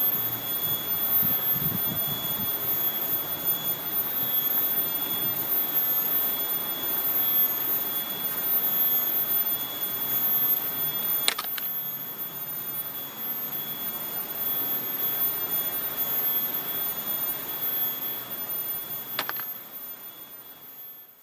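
Kinjeng tangis cicadas calling with a steady high-pitched drone over rustling foliage, with two brief crisp ticks, about halfway and near the end, as dry teak leaves fall. The sound fades out at the very end.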